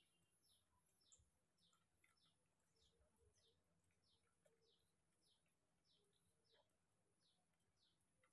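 Near silence, with a faint, high, short falling chirp repeating about twice a second.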